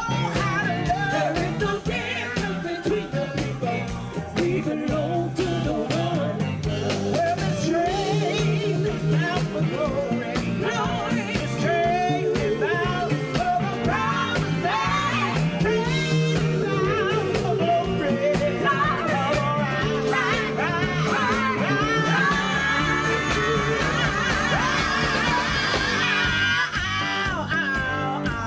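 Live gospel-soul performance: several women singing together at full voice over a live band with drums.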